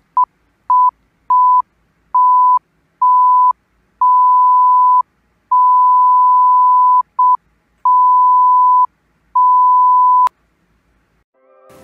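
An electronic beep tone at one steady mid pitch, switched on and off about eleven times in beeps of uneven length, from brief blips to about a second and a half, with silence between. It ends with a click about ten seconds in.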